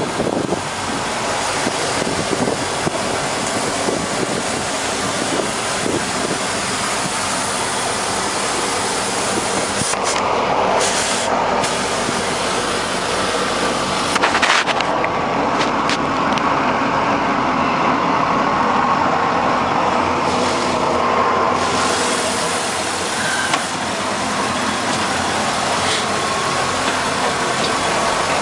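Marine engine of a 2012 Monterey M3 (a MerCruiser MAG) running steadily, heard up close from the open engine bay, with an even hiss over it.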